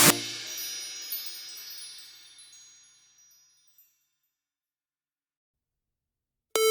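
A track's closing chimes ring out, with a few light strikes, and fade away over about three seconds into silence. Near the end, the next lofi track starts abruptly with piano.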